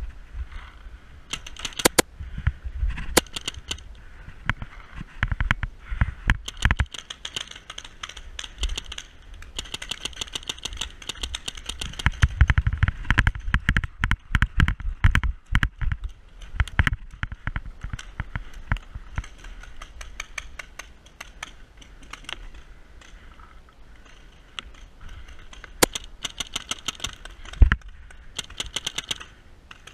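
A paintball game: scattered sharp cracks of paintball marker shots, the loudest near the end, among dense runs of small clicks and crunches from movement over gravel and rattling gear.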